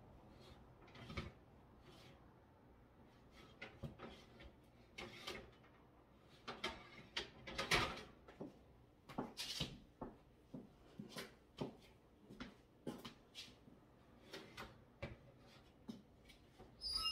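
Metal baking tray and oven rack clattering and scraping as the tray is worked out of a hot wall oven one-handed: a long string of irregular knocks and clinks, loudest about eight seconds in.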